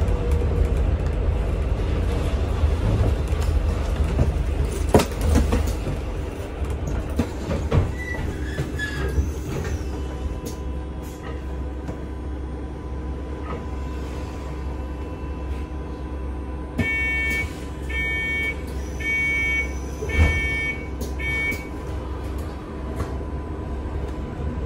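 Inside a Volvo B5L diesel-electric hybrid double-decker bus on the move: a steady low rumble with rattles and knocks from the body, louder in the first few seconds and then settling lower. A faint steady high tone comes in about ten seconds in, and a run of about six short electronic beeps sounds in the second half.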